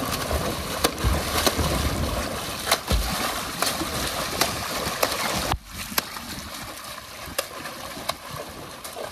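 Pool water splashing as a child beats the surface with his arms and hands, with repeated sharp slaps on the water. A little past halfway the splashing suddenly becomes quieter and continues more softly.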